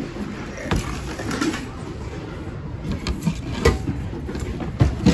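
Objects being rummaged through in a thrift-store bin: scattered knocks and clatter of tins and small items being moved by hand, the sharpest knocks coming a little after the middle and near the end.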